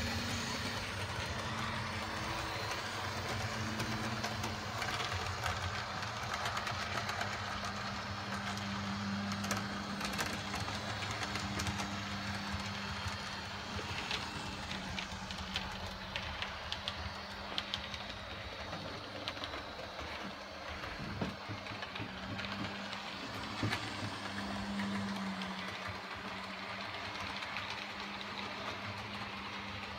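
Model trains running on the track: a steady electric motor hum that swells and fades, with light clicks of wheels passing over rail joints and points.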